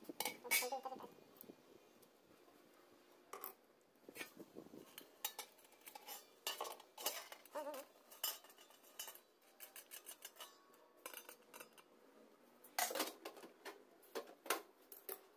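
Stainless steel sink cover plate and its small metal knob being handled: repeated faint metallic clinks and taps, a few with brief ringing. A quick cluster of clanks comes near the end as the plate is set down into the steel sink.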